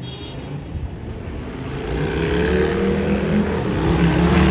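Sydney Trains electric suburban train approaching, growing steadily louder: a low motor hum with a whine that rises in pitch from about halfway through.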